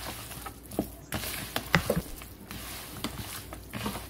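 A hand squeezing and kneading raw chicken drumsticks in a wet spice, salt and lemon-juice marinade in a plastic bowl: soft, irregular squelches and little slaps.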